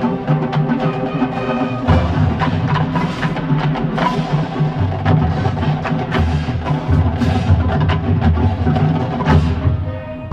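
Marching band playing: sharp drum and percussion strokes over a low bass line that moves in steps, with held notes above.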